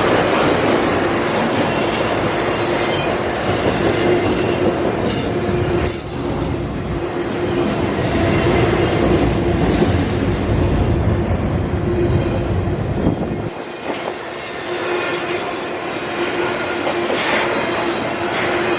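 Freight cars of a CSX intermodal train rolling past at track side, with a steady wheel squeal. The deep rumble drops away about thirteen and a half seconds in while the squeal and rolling noise go on.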